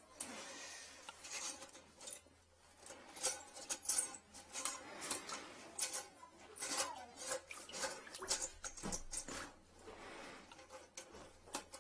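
Metal retrieval rod and corrugated guide hose being worked into a toilet bowl: irregular sharp clicks, clinks and short scrapes of metal against porcelain while fishing for a toothbrush lodged in the toilet trap.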